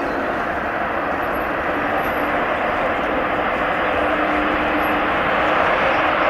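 Airliner engines running with a steady rushing noise that grows slowly louder.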